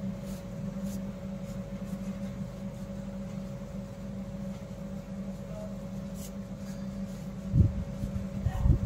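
Steady low mechanical hum, with faint rustle and clicks from fabric strips being knotted by hand, and two low handling bumps near the end.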